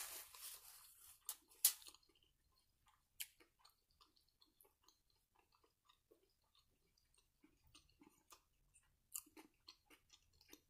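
A paper sandwich wrapper crinkles for about the first two seconds. After that come faint chewing sounds and scattered small clicks of a fork against the plate as coleslaw is scooped up and eaten.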